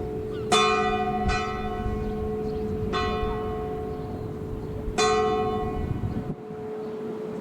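A single church bell ringing for the Sunday service: four strokes, the first two close together and then about two seconds apart, each stroke's deep hum hanging on between them.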